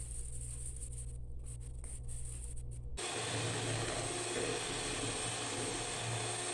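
Electric hand mixer switched on about three seconds in, its beaters whisking egg whites with sugar at a steady speed.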